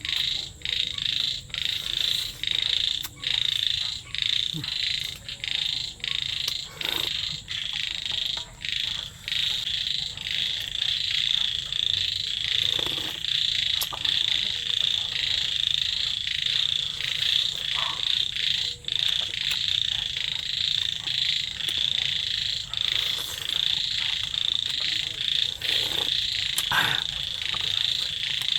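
A dense, high-pitched chorus of calling wild animals, pulsing rapidly for the first ten seconds or so, then running on more steadily. A few faint knocks sit underneath.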